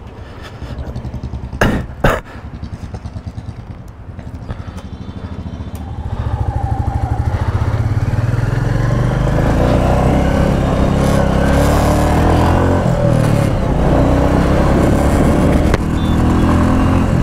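Royal Enfield Classic 350's single-cylinder engine running at low revs with an even thump, two sharp knocks about two seconds in, then, about six seconds in, pulling away and getting much louder as the bike is taken up through the gears to road speed.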